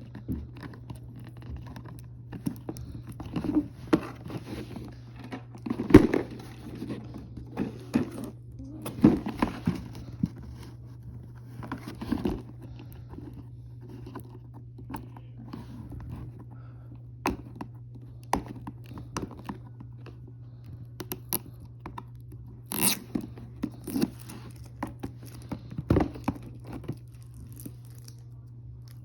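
Packaging being handled during an unboxing: irregular scraping, crinkling and clicking of cardboard and plastic, in short bursts with pauses, over a steady low hum.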